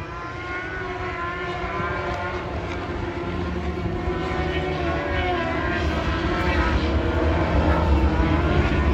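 Several racing superbike engines at high revs on the circuit, pitch rising and dropping through gear changes, the sound growing steadily louder as the bikes approach.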